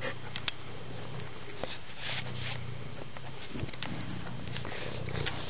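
Domestic cat purring close to the microphone, a steady low rumble rising and falling with its breaths, with rustling and a few sharp clicks of handling over it.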